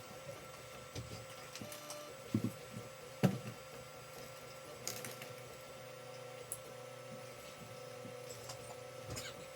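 Creality CR-10 3D printer running a print: its stepper motors whine in steady tones as the print head moves, with a few short clicks and knocks between.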